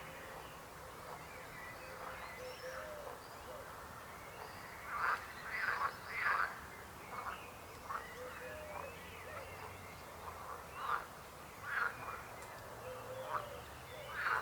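Frogs croaking: short croaks repeated at irregular intervals, loudest in a cluster about five to six and a half seconds in, with fainter calls between.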